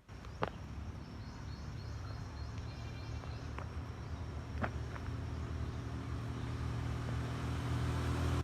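A motor vehicle's engine running with a low rumble that grows steadily louder, with a few sharp clicks. Faint insect trills sound high above it.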